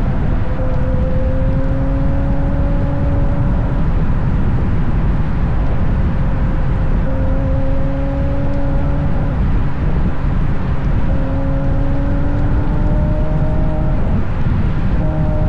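Ferrari GTC4Lusso with a Capristo exhaust cruising on the open road. Its exhaust note is a steady hum that rises gently in pitch a few times under the throttle, half buried under heavy low rumble from wind and tyres on the outside-mounted microphone.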